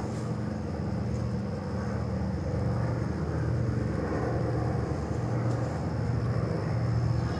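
Piston engines of World War II-era propeller warplanes droning overhead as a pair flies past, a steady low drone that grows slowly louder.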